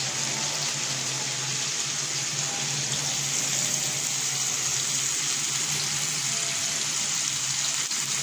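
Boneless chicken pieces frying in oil in a nonstick pan over a low flame, a steady sizzling hiss.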